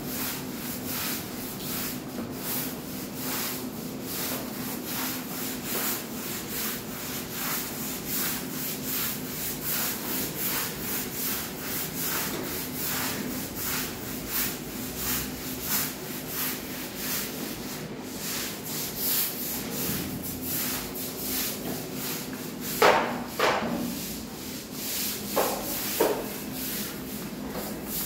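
Stiff push broom scrubbing a wet, soapy concrete floor in steady, rhythmic back-and-forth strokes, with a few louder knocks near the end.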